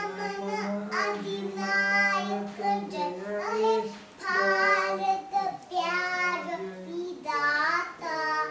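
A young girl singing a melody in long, held notes, with a lower steady tone sounding beneath her voice until about seven seconds in.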